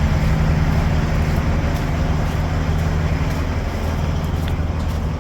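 Big diesel engine of a concrete pump truck running steadily, a constant low hum with no change in speed.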